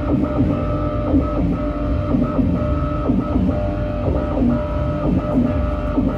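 Live noise-music performance: loud, dense distorted guitar and electronic noise, with a band of tone that chops on and off about twice a second.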